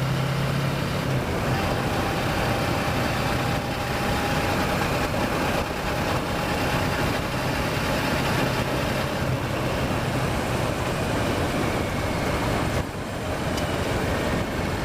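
Kawasaki Versys motorcycle engine running at a steady pitch under way, with a rush of wind noise on the microphone. The engine briefly drops off about two-thirds of the way through.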